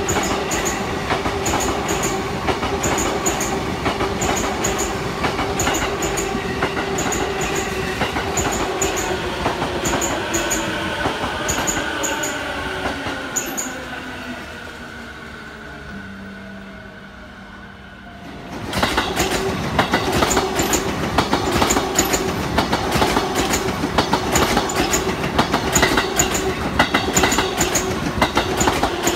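JR East E233-0 series electric train running past: wheels clack over the rail joints while the motor whine glides down in pitch as it slows, fading to a low steady hum about halfway through. A little after that, train noise comes back abruptly and loudly, with wheels clacking steadily over the joints.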